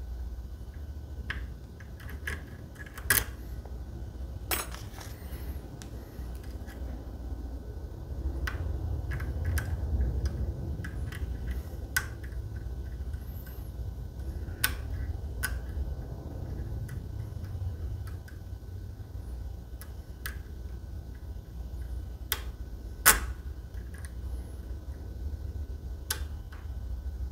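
Lock pick and tension wrench working the pins of a Medeco lock cylinder: scattered small metallic clicks at irregular intervals, a sharper one about three seconds in and the loudest near the end. Beneath them runs a low rumble.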